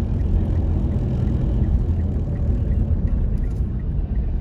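Steady low rumble of a car's engine and tyres, heard from inside the cabin while driving along a road, with a faint regular tick about three times a second.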